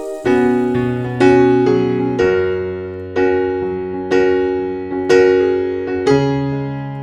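Background music: a piano playing slow chords, a new chord struck about once a second and left to ring and fade.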